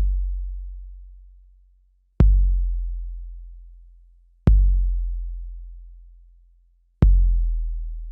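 Deep sub-bass kick drum sample played back from an Akai MPC sampler. Each hit has a sharp click and a long decaying boom, and it sounds three times, roughly every two and a half seconds.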